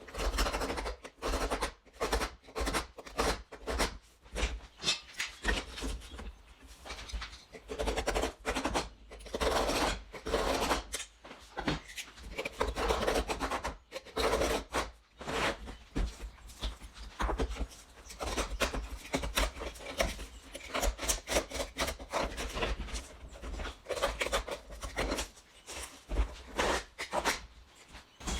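A knife scoring cement backer board: repeated short, rasping strokes across the board's face, with brief pauses between runs of strokes.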